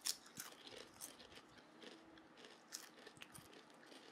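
Two people biting into and chewing crisp snack chips: a string of faint, sharp crunches, the loudest just after the start and again a little before the three-second mark.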